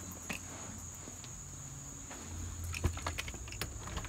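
Footsteps and scattered clicks and knocks of handling as an infant car-seat carrier is carried across a concrete patio to a door, with a low rumble starting about halfway. A steady high-pitched tone sounds throughout.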